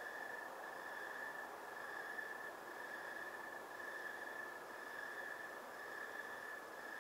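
Night insects trilling in chorus: one steady high-pitched tone that swells and fades slightly about once a second, over a faint background hiss.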